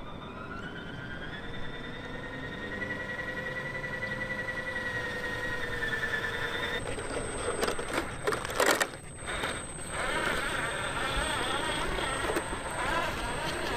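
A 1/10-scale RC4WD Desert Runner truck's electric motor and drivetrain whining steadily, the pitch rising a little as it speeds up. About seven seconds in, this gives way to tyres crunching and scraping over rough ground, with a few knocks shortly after.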